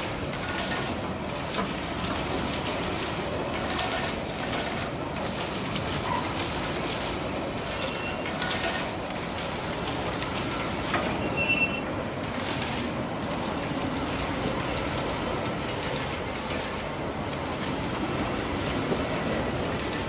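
Freight train hopper wagons rolling past: a steady running noise of wheels on rail, with a few brief high wheel squeals, the clearest about eleven and a half seconds in.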